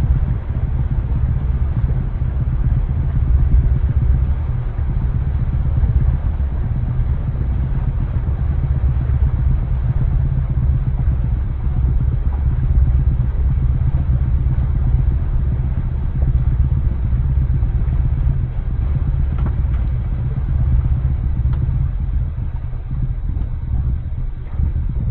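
Towboat's engine running steadily while the boat cruises underway, a constant low drone with rushing noise over it.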